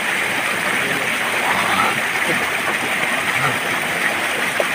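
Steady rush of running water, with faint voices in the distance.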